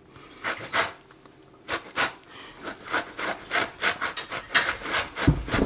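Lemon peel rasped across the fine teeth of a flat stainless-steel hand grater, zesting the rind: a few spaced scraping strokes at first, then quicker ones at about three or four a second. A low bump near the end.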